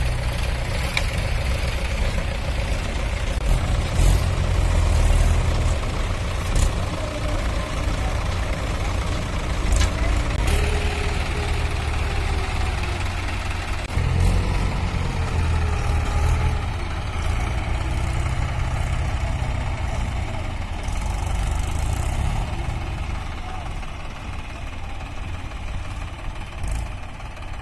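Diesel engines of Mahindra and Sonalika DI 745 farm tractors running under load as they pull tipping trolleys stuck in soft soil, a steady low rumble that shifts in character about halfway through.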